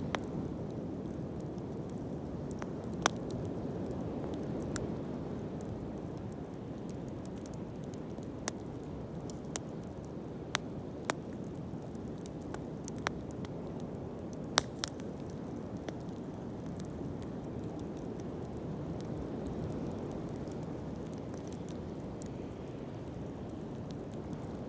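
Open wood fire burning with a steady low rush of flame, broken by about a dozen sharp, irregular crackles and pops.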